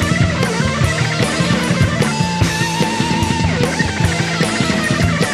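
Background rock music with a steady drum beat and electric guitar.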